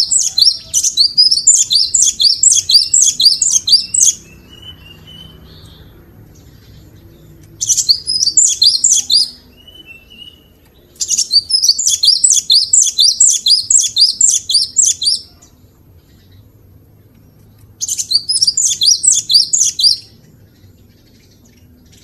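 Cinereous tit (gelatik batu) singing: four bursts of quickly repeated high notes, with short pauses between them.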